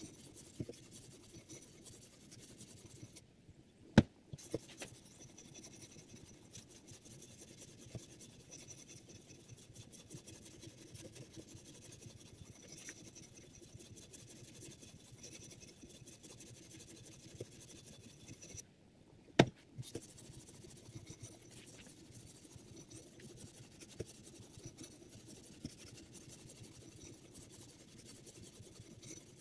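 Sharpening stone on a guided-rod knife sharpener (Hapstone R2) stroked back and forth along a steel knife edge: a steady, fast, fine scraping. Two sharp knocks stand out, about four seconds in and again just before twenty seconds.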